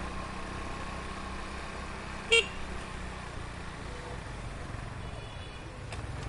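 Heavy street traffic with vehicle engines running in a steady low rumble. One short, loud horn toot comes about two seconds in, and a fainter horn sounds near the end.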